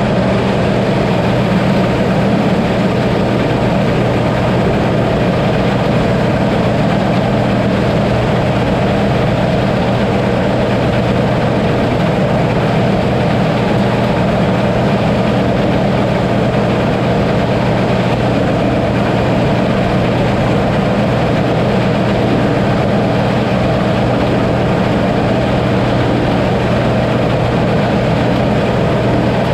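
Combine harvester running steadily under load, a constant heavy engine drone with a strong low hum.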